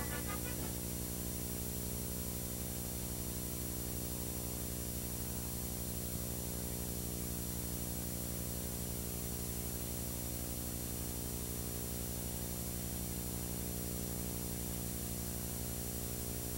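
Steady electrical mains hum with a stack of evenly spaced overtones over faint hiss: the background noise of a VHS tape transfer with no programme sound on it.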